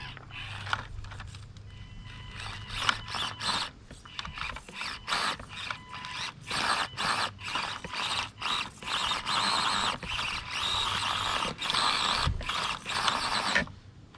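Axial SCX24 1/24-scale RC crawler's small electric motor and gear drive whirring in short throttle bursts as it climbs rock. The bursts grow longer and closer together in the second half, then stop abruptly near the end.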